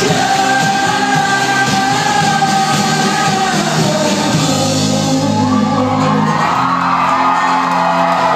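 Rock band playing live with a singer holding long notes over guitars, bass and drums, heard from among the crowd in a club.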